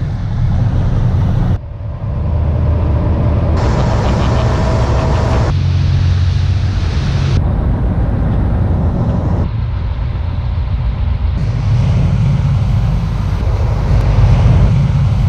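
Rigid-inflatable lifeboat engines running at speed, with water rushing past the hull and wind on the microphone. The sound changes abruptly every couple of seconds as short clips are cut together.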